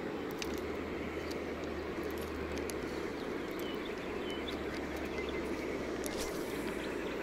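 Steady low outdoor rumble with scattered small clicks, and a brief swish about six seconds in as the spinning rod is cast.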